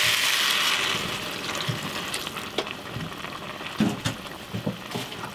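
Food sizzling in a hot pot, the sizzle loud at first and dying down. Scattered knocks of a utensil stirring against the pot.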